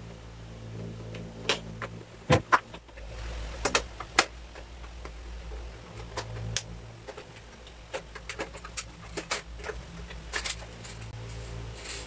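Handling noise: scattered sharp clicks and light knocks of objects being picked up, turned and set down, over a low steady hum.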